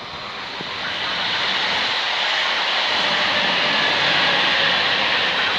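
Two coupled EN64 electric multiple units running past, a rushing rolling noise that grows louder over the first two seconds as they come alongside, then holds steady.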